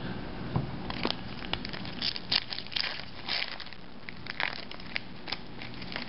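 Foil wrapper of an Upper Deck hockey card pack crinkling and tearing as it is ripped open by hand, a run of irregular crackles.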